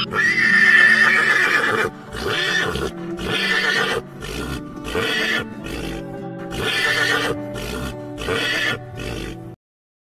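Horse whinnying: one long call, then a run of shorter calls, over background music. The sound cuts off suddenly just before the end.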